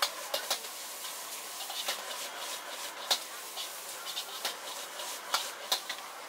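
Noodles stir-frying in a wok: a metal ladle clinks and scrapes against the wok in irregular sharp strikes over a steady sizzling hiss.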